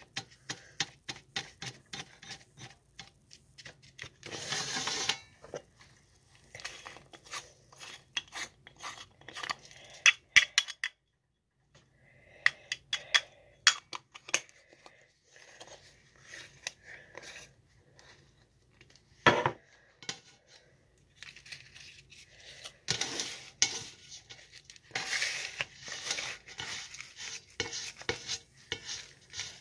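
Hand-handling of joint-rolling gear over a metal tray: a string of small clicks, taps and scratchy rubbing from a joint roller and an herb grinder, with one sharper click in the middle.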